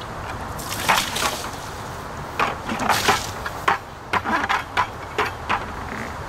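Water splashed onto a glossy black painted plywood wall in a series of short bursts, wetting the surface to make it slippery.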